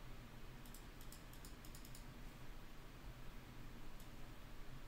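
Faint computer keyboard typing: a quick run of about ten light clicks starting just under a second in and lasting about a second, with a single click near the end, over a low steady hum.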